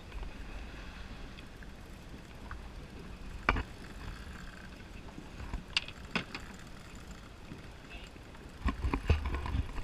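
Water and wind noise around an inflatable boat, with a few sharp knocks about three and a half and six seconds in and a louder cluster of knocks and buffeting near the end.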